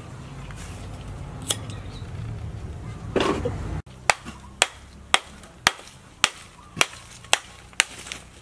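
Sharp, evenly spaced clacks about twice a second at a clay charcoal stove being lit, starting about four seconds in. Before them, a low rumble and a brief rustle.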